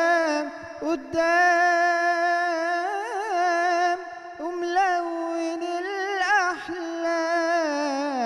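A man singing solo into a microphone in Egyptian Arabic, holding long notes and decorating them with wavering, ornamented runs, with a short break for breath about halfway through.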